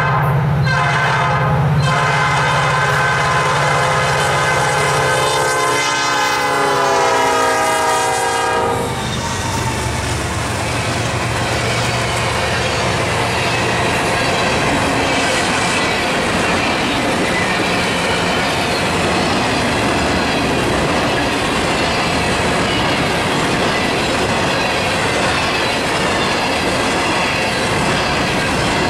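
Nathan Airchime P5 five-chime horn on a Norfolk Southern SD40-2 sounding as the locomotive approaches. Its chord drops in pitch as the engine passes and cuts off about eight and a half seconds in, over the drone of the diesels. Then a long string of empty ballast hoppers rolls by steadily.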